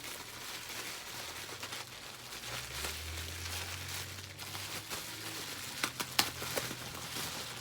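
Packaging crinkling and rustling as it is opened by hand, with a few sharp clicks about six seconds in. A low hum runs underneath for a couple of seconds in the middle.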